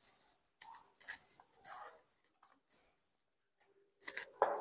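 Marker pen writing on a whiteboard: a run of short scratchy strokes with gaps between them, the loudest a little after four seconds in.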